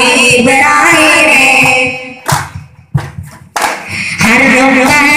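Malayalam Mappila song, sung over a steady beat of frame drum strikes. About two seconds in, the singing drops out for roughly two seconds, leaving a few sharp drum strikes, then comes back in.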